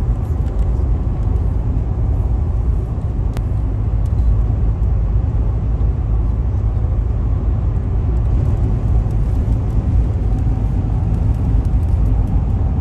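Steady low rumble of a car driving at highway speed, heard from inside the cabin: road and tyre noise with the engine underneath.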